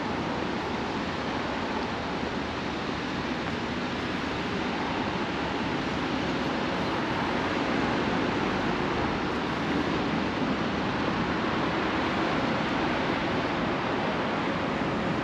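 Steady, even rushing noise of road traffic, with no single vehicle standing out.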